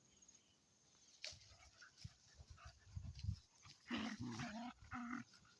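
Dogs growling at each other as they fight over an unripe mango: a low rumbling growl in the middle, then several short, higher-pitched growls about four seconds in.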